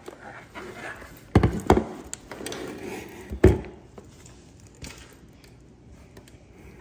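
Stainless-steel Bentgo lunchbox being taken out of an insulated lunch bag and set down on a granite countertop: a few sharp knocks, two close together about a second and a half in and another about a second and a half later, with softer handling noise between.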